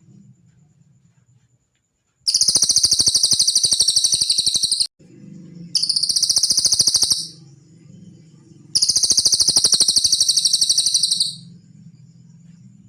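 Cililin bird song from a masteran recording: three loud, high-pitched, rapid rattling trills, the first and last about two and a half seconds long and the middle one shorter, over a faint low hum.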